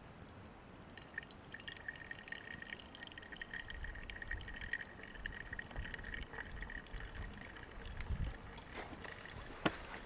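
Water poured in a thin, steady stream, as for hand-drip coffee, ringing with a steady tone from about a second in until near the end, followed by a few clicks.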